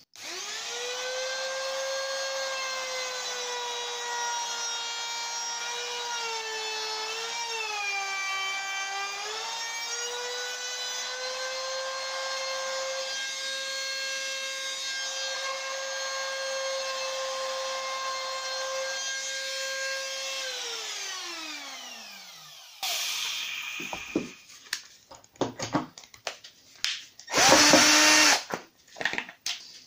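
A high-speed electric motor runs steadily for about twenty seconds, its pitch dipping briefly about a third of the way in, then winds down with a falling whine. Near the end a cordless drill-driver runs in a short loud burst, among scattered knocks and clicks.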